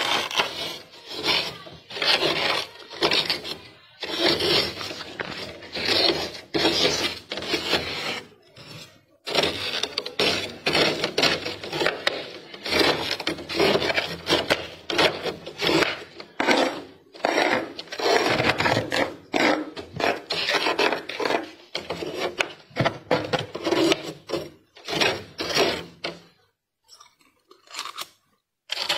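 Thick freezer frost being scraped off inside a freezer: fast, repeated rasping, crunching strokes in long runs, with a short pause now and then and a longer lull near the end.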